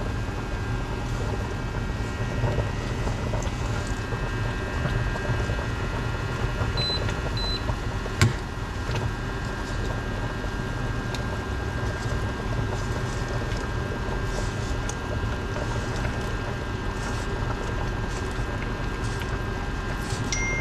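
Spaghetti being stirred with metal tongs in a stainless steel pot of boiling water on an induction cooktop: a steady mechanical hum with light clicks of the tongs against the pot and one sharp clack about eight seconds in. Two short high beeps sound about seven seconds in, and a steady high tone starts near the end.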